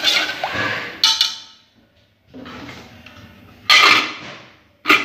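Metal lid being set onto a metal cooking pot: three sharp clanks with a short ring, the loudest about four seconds in, and a softer steady hiss between them.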